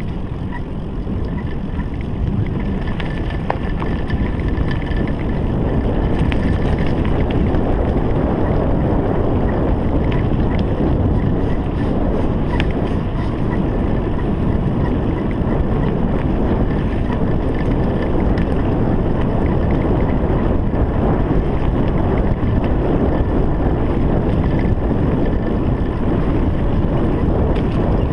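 Wind buffeting an action camera's microphone over the rumble of mountain bike tyres rolling fast along a dirt and leaf-covered woodland trail, with scattered light rattles from the bike. It grows louder over the first few seconds as the bike picks up speed.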